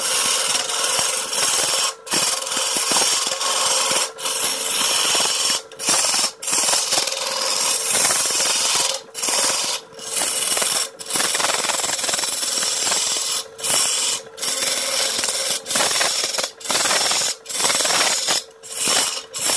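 Wooden blank spinning on a lathe, sanded with hand-held sandpaper wrapped in a rag. It makes a rough hissing scrape that breaks off about every second as the paper is lifted and pressed back, over a steady hum from the lathe motor.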